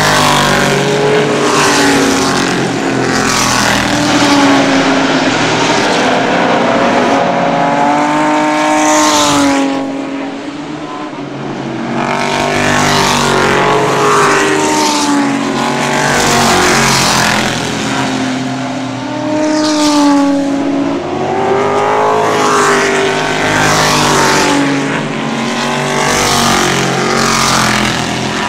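Vintage race car engines running hard on a circuit, several cars going by one after another, the engine pitch climbing through the gears and dropping away as each passes.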